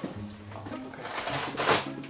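Background music of held low notes that change every half second or so, with a short rush of noise near the end.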